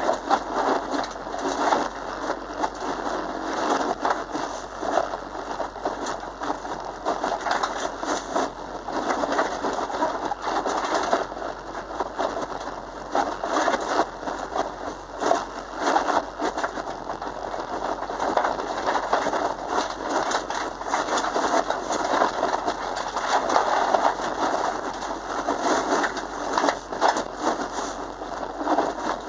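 Cabin sound of a Subaru Impreza driven hard on a loose dirt course: the flat-four engine running under load, mixed with a dense, steady crackle of grit and stones striking the car's underside. It comes through thin and harsh, with little bass.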